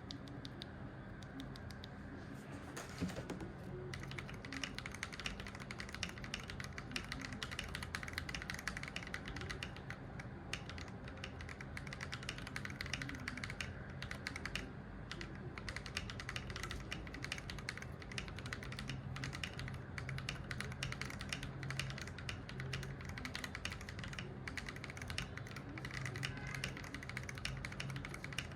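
Mechanical keyboard with lubed Akko V3 Cream Yellow linear switches and lubed stabilisers, in a gasket-mount polycarbonate case with a PE foam mod, being typed on fast and steadily. The keystrokes are a dense stream of clicks, lighter for the first few seconds and then denser.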